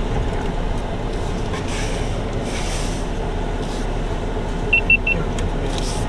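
Steady low rumble of a vehicle driving slowly, heard from inside the cabin. Three quick high beeps come in a row about five seconds in.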